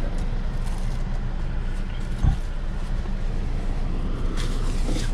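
Steady low rumble of a car's engine and road noise heard inside the cabin while it moves slowly, with a single dull thump a little over two seconds in.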